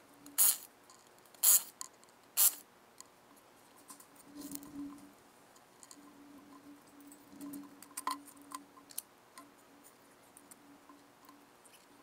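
Cordless drill spinning lug nuts off an ATV wheel hub in three short bursts in the first few seconds, followed by light clinks and a couple of dull knocks as the wheel comes off.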